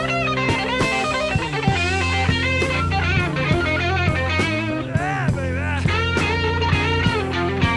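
Background rock music led by an electric guitar, with bent notes over bass and drums.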